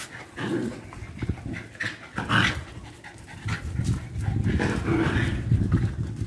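Dog panting, with a few small knocks and scuffles.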